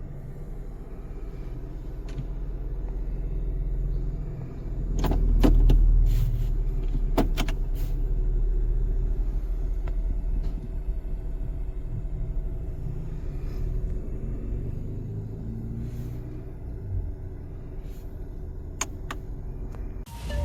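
Car engine running with a steady low rumble, with a few sharp clicks and knocks about five to seven seconds in and again near the end.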